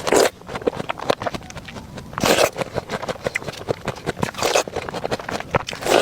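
A person chewing fruit close to the microphone: a rapid run of wet, crisp crunching clicks, with a louder bite or crunch about every two seconds.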